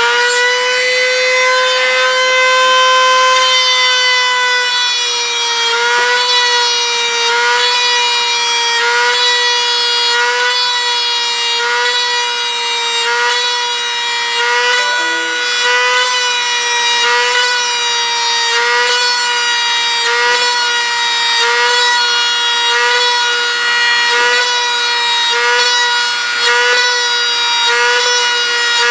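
Dremel rotary tool spinning a brass tube at high speed, a steady high-pitched whine. The pitch dips briefly at a regular rhythm, a little more than once a second, as the spinning tube is pressed into the plane's skin to mark each rivet of a single row.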